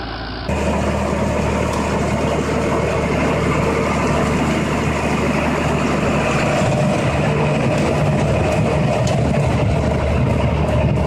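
Tractor engine running steadily while towing a pumpkin harvester. It comes in about half a second in, after a brief quieter moment.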